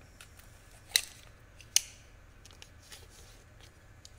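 Two sharp clicks about three-quarters of a second apart, with a few faint ticks, as small parts and a plastic bag are handled by hand.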